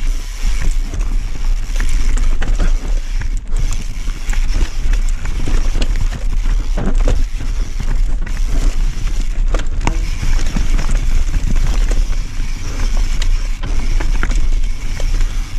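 Mountain bike riding fast down a rough dirt trail: tyres rumbling over dirt, roots and rocks, with a steady rattle and frequent clicks and knocks from the bike, over a continuous low rumble.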